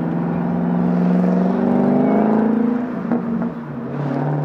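Supercharged 5.0-litre V8 of a 2012 FPV GT 335 with its stock exhaust, running under way. The note climbs slowly for the first two and a half seconds, dips briefly about three seconds in, then picks up again.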